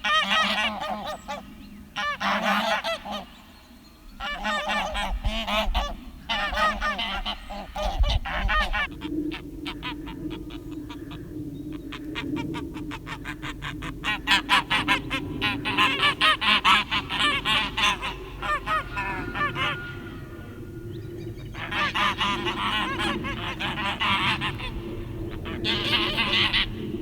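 Geese honking loudly in repeated bouts with short breaks: domestic guard geese and wild Canada geese in an aggressive standoff after a fight.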